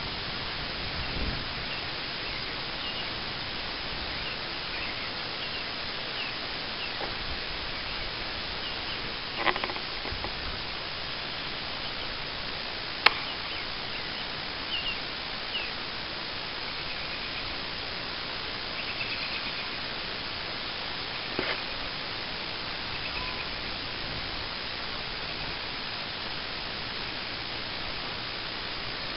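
Steady hiss of background noise with faint, short high chirps scattered through it, a couple of soft knocks, and one sharp click about halfway through.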